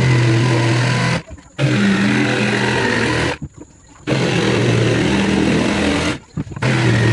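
Electric jigsaw cutting through a plywood sheet in four runs of a second or two each, stopping briefly between them, with a steady motor hum under the rasp of the blade.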